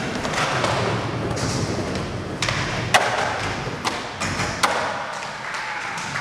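Skateboard wheels rolling over a smooth concrete floor, broken by several sharp clacks of boards popping and landing, the loudest about three seconds in.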